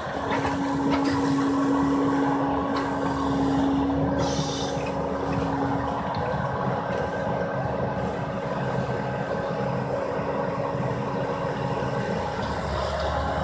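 Skid-steer loader's engine running steadily under load as its grapple lifts and places a balled tree, with a steady drone and a couple of brief high squeals in the first few seconds.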